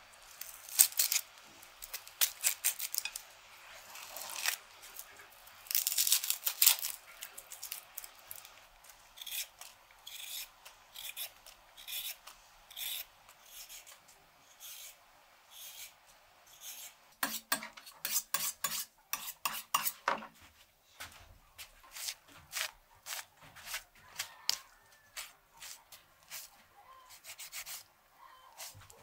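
Dry onion skins crackling and rustling as they are peeled off by hand, then a small knife scraping along a carrot in a steady run of strokes about one a second. Partway through comes a short run of louder knocks, followed by lighter clicks.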